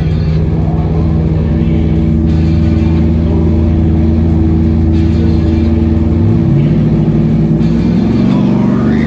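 Pickup trucks' V8 drag-race engines idling steadily on the start line, then revving up with rising pitch about six seconds in. Background music plays over them.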